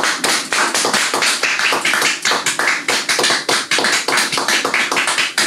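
A small club audience applauding: a dense run of hand claps that stops abruptly at the end.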